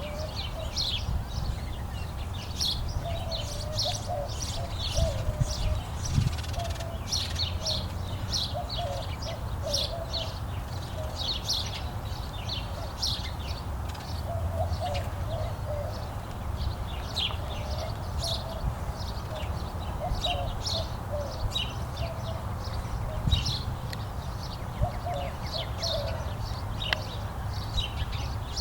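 Birdsong: small birds chirping in quick, short high notes throughout, with a lower wavering call recurring every few seconds, over a steady low rumble.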